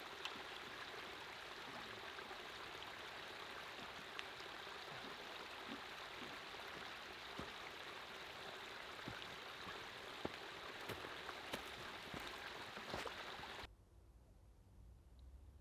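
Small forest brook trickling over rocks, a steady soft rush, with scattered footsteps crunching through dry fallen leaves. The water sound cuts off suddenly near the end, leaving a faint low rumble.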